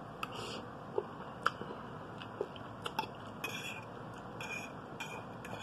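A person chewing a mouthful of soft, creamy egg noodles, with small wet mouth noises and a few light clicks of a metal fork on the plate.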